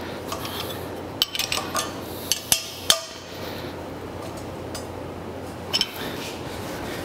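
Steel wrenches clinking on square-head bolts as the bolts fastening the anvil to its stand are tightened: a cluster of sharp metal clinks in the first three seconds and another couple near six seconds, over a steady low hum.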